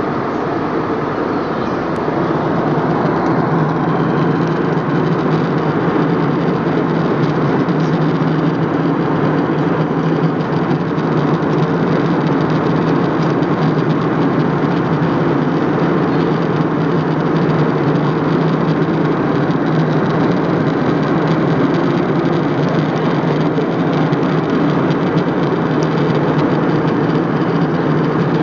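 Cabin noise of an airliner in flight: a steady drone with a low hum under it, a little louder from about two seconds in.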